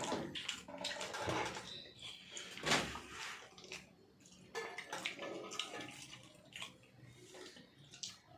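People eating close to the microphone: irregular wet chewing and slurping noises with occasional sharp clicks.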